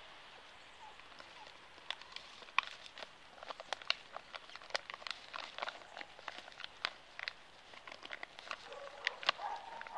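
Golden retriever puppy rooting through leafy ground-cover vines: irregular light crackles and snaps of leaves and stems as it noses and paws in the foliage, thickest from about two seconds in.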